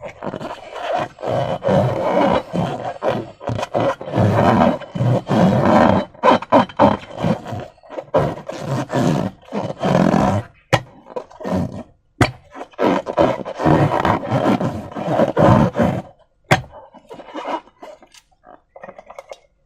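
Slime and balloon rubber being squeezed and worked by hand: three long stretches of dense, rough squelching of several seconds each, with sharp clicks between them.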